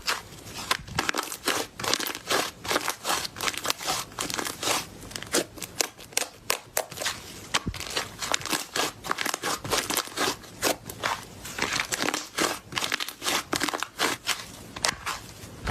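Slime being squeezed and kneaded by hand, giving dense, irregular crackling and popping clicks as trapped air bubbles burst.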